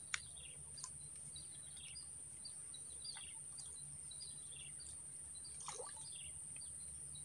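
Faint bird chirping: short, falling chirps repeated every half second or so, over a steady high hiss. A single sharp click sounds just after the start.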